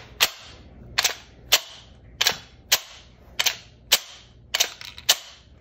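Atlas Chaos pistol's slide being racked by hand again and again: about ten sharp metallic clacks, roughly in pairs, as the slide is pulled back to eject a dummy round and let go to strip the next one from the magazine up the feed ramp into the chamber. It is a hand-cycling test of the magazine's feed angle.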